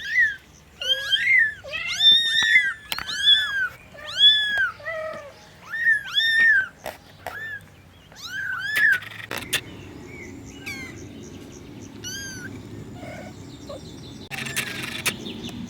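Cats meowing over and over in short, rising-and-falling calls, one or two a second, loud for about the first nine seconds. After that, fainter and higher meows go on over a steady low hum.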